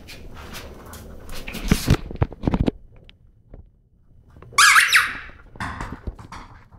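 A puppy biting a squeaky tennis ball, which squeaks loudly about halfway through and again more weakly just after. Before that come a few sharp knocks.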